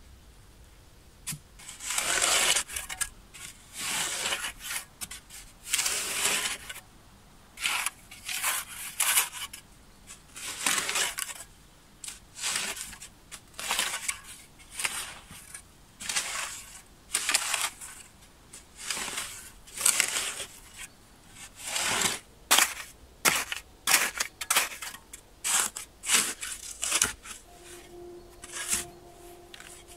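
Steel shovel blade stabbing and scraping into sandy soil, repeated digging strokes roughly once a second, each a short gritty crunch.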